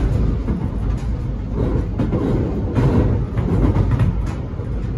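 Alstom X'Trapolis electric train running on the rails, heard from inside the carriage: a steady low rumble of wheels on track with a few faint clicks.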